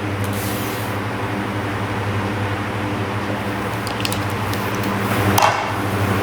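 Steady mechanical hum with an even hiss, with a few faint clicks about four seconds in.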